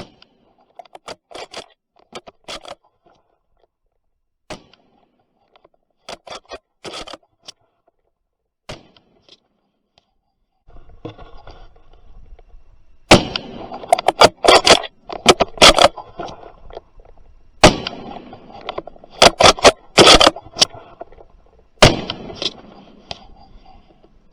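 Rifle shots from a 7mm Winchester hunting rifle, heard as a series of loud, sharp cracks in the second half, mixed with scraping and rustling as the gun is handled. The first half holds only faint scattered clicks and scrapes.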